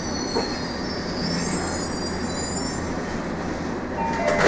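Tobu 70000 series train's wheels squealing on the rail, high-pitched wavering squeals over a steady running rumble. Near the end the squeal gives way to steady tones and a sharp knock.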